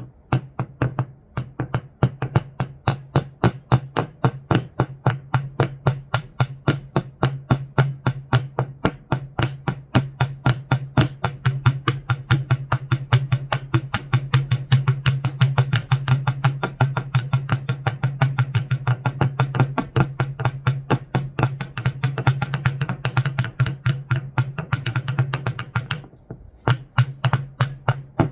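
Noise music from rocks being played: a fast, even run of sharp taps or clicks, several a second, over a steady low electrical hum. The taps pause briefly near the end, then start again.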